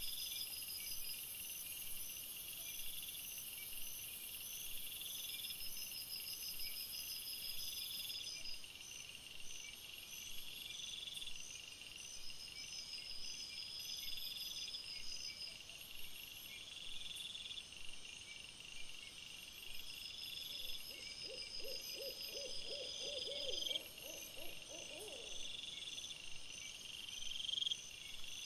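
Night-time ambience of insects chirping in short high bursts that repeat every couple of seconds, over a steady hiss. About three-quarters of the way through comes a rapid run of lower pulsing calls lasting a few seconds.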